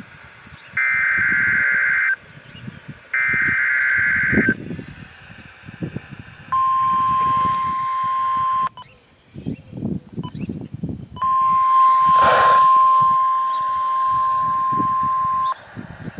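NOAA Weather Radio receiver sounding a test alert through its speaker. First come two short bursts of two-tone warble, the digital SAME header that tells receivers an alert is coming. About six seconds in, the steady 1050 Hz warning alarm tone starts; it breaks off for a couple of seconds, then returns for about four more.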